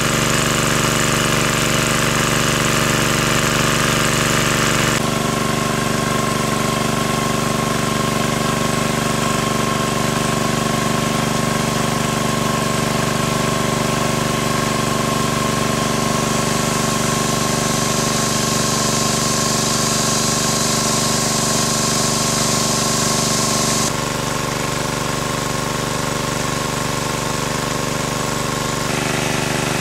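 Small engine of a portable water pump running steadily, with water gushing from its discharge hose. The sound shifts abruptly a few times.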